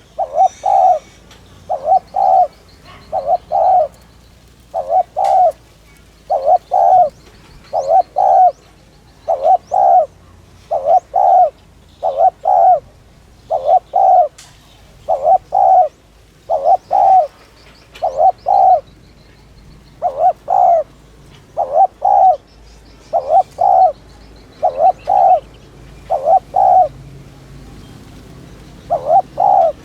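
Spotted dove cooing over and over in quick paired coos, about one pair every second and a half, with a short break near the end. This is the rapid, urgent 'thúc' call that keepers play to stir up decoy doves.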